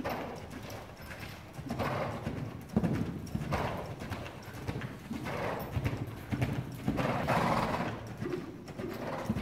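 A horse cantering on sand arena footing: repeated hoofbeats, with a louder rushing swell every second or two.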